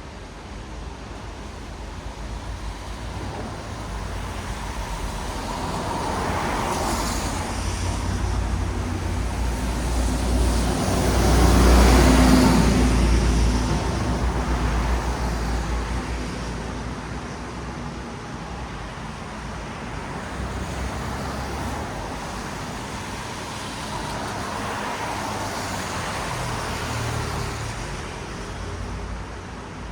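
Traffic on a rain-wet city road: tyres hissing on the wet asphalt as vehicles pass. The sound swells as one vehicle passes close, loudest about twelve seconds in with a deep rumble beneath, and another smaller swell passes near the end.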